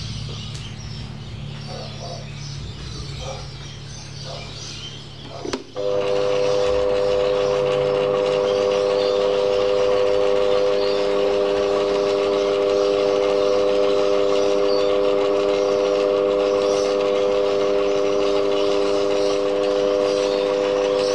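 Metal lathe fly cutting a cast cylinder, at first a low steady hum. About six seconds in, a loud, steady ringing whine of several pitches starts suddenly and holds.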